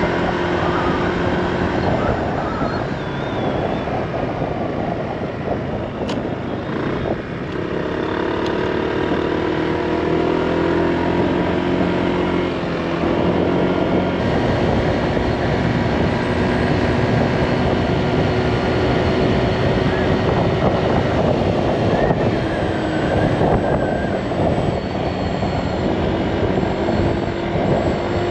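Honda Click 160 scooter's single-cylinder engine running steadily under way, with steady wind noise over it.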